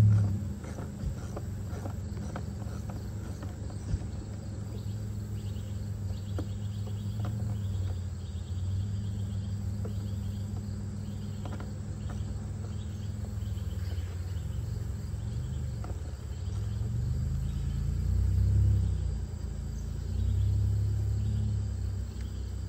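Insects chirping in a pulsing rhythm over a steady low rumble, with a thump at the start and a few sharp clicks in the first couple of seconds from hand tools working the jet ski's sponson bolts.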